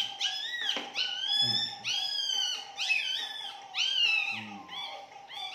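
Newborn miniature pinscher puppy crying in a run of high-pitched squeals, each rising then falling, while its tail is being docked.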